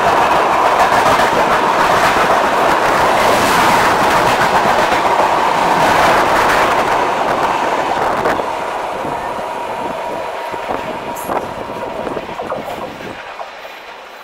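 Coaches of a passing express train rushing by at speed on the adjacent track, their wheels clattering over the rail joints. The noise fades after about eight seconds as the last coaches go by, then drops off sharply near the end.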